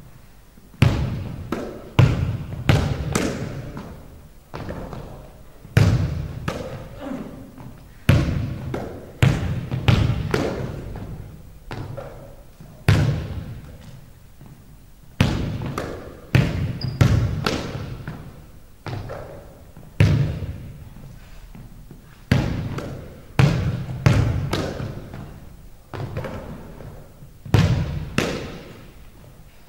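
Basketball bouncing on a hardwood gym floor in irregular runs of two to four bounces, each bounce ringing on in a long echo through the empty hall.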